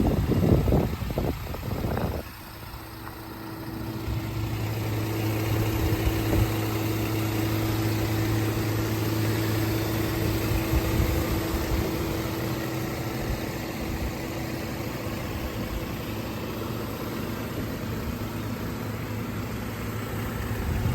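2010 Cadillac CTS 3.0L V6 engine idling steadily with a low, even hum. A few short, loud noises come in the first two seconds.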